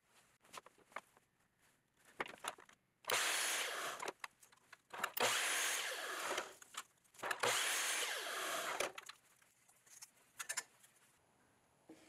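Compound miter saw cutting thin cedar strips: three short cuts of a second or so each, with light clicks and knocks from handling the wood before and after.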